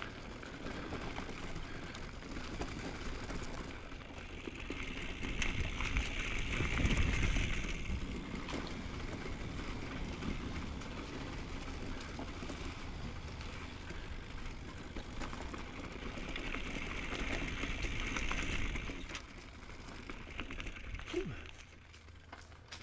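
Riding noise of an Intense M6 mountain bike heard from a chin-mounted camera: wind rushing over the microphone and tyres rolling over the trail, swelling twice as the bike speeds up, with a few light knocks.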